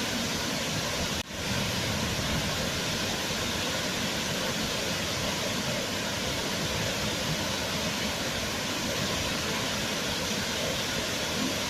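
Waterfall: a steady, even rush of falling water, with a brief drop in level just over a second in.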